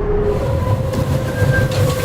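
Rushing, rumbling noise of a large ocean-racing trimaran under way, heard onboard, with a steady high whine over it. The rushing noise comes in sharply just after the start.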